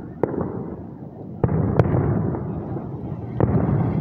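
Aerial fireworks shells bursting at a distance: four sharp bangs over a continuous low rumble of echoing booms.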